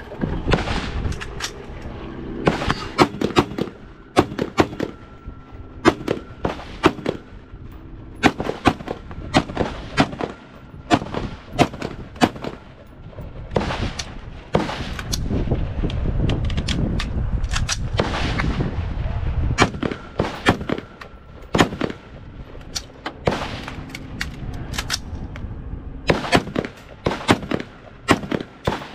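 Rifle gunfire on a shooting range: sharp shots at irregular intervals, some close and some farther off along the firing line, with a louder, denser stretch of fire around the middle.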